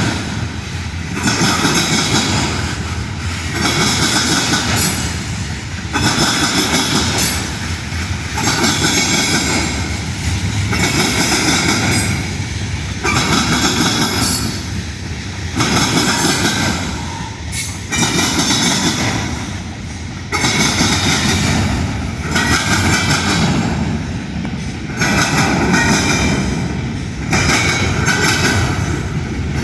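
Union Pacific train's rail cars rolling past on the track, the noise of wheels on rail swelling and fading about every two seconds as each car goes by.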